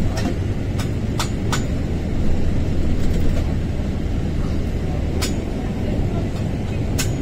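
Ride noise inside a moving passenger vehicle: a steady low rumble, with sharp clicks and rattles about half a dozen times.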